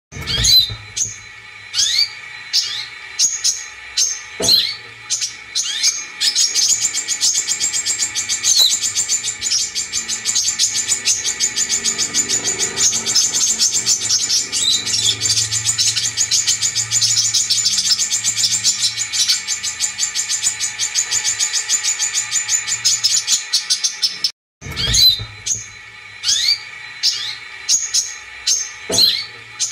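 Brown-throated sunbird (kolibri kelapa) song played as a bird-keepers' lure recording to set caged birds singing: sharp high chirps about twice a second, then from about six seconds in a long, rapid, high trill. Just before the end it cuts out for a moment and the chirps start again.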